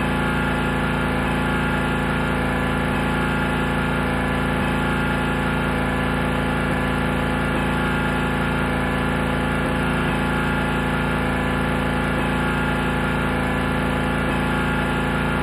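Gasoline-powered pressure washer engine running steadily at a constant speed.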